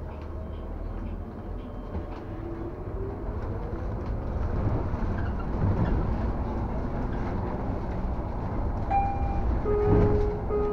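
Muni city bus heard from inside: a steady engine and road rumble that grows louder, with a faint rising whine a few seconds in. Near the end come several short electronic beeps.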